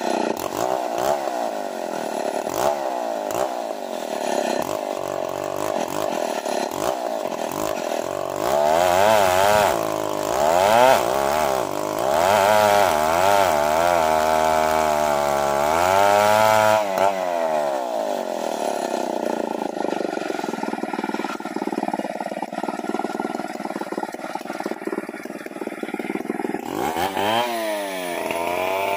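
Two-stroke chainsaw ripping a matoa log lengthwise, its engine speed dipping and recovering repeatedly as the bar bogs and clears in the hard wood. From about 18 seconds in it runs steadier and a little quieter for several seconds, then revs up again near the end.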